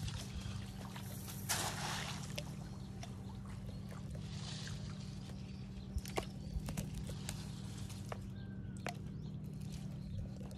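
Water sloshing and splashing as a fishing net is hauled out of a canal, with a louder splash about one and a half seconds in and a few sharp knocks later, over a steady low hum.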